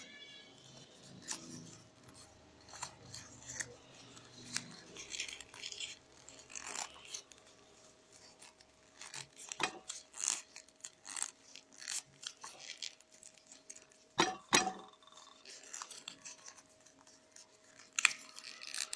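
Rolled newspaper tubes rustling and crinkling as they are woven by hand, with scattered crisp rustles and a pair of sharper clicks about fourteen seconds in.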